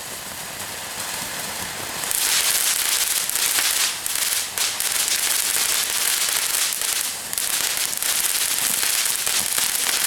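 Lit firework fountains spraying: a hiss that builds, then about two seconds in turns into a loud, dense crackling hiss that dips briefly now and then.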